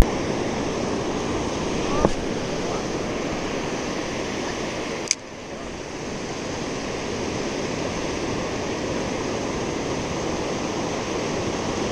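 Small waves breaking and washing up a sandy beach: a steady rush of surf, with a sharp click about five seconds in.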